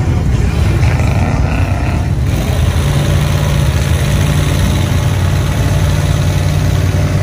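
Engine of an off-road mud-bogging vehicle running loud and steady, a low drone holding one pitch.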